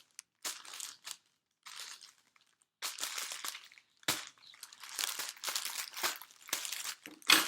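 Packaging crinkling and rustling in irregular bursts as it is handled and unwrapped, with a sharper knock about four seconds in.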